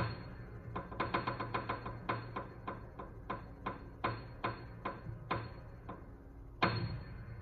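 Solo keyboard playing the last phrase of a piece: single struck notes come quickly at first, then slow and thin out. A louder final chord about three quarters of the way through is left ringing.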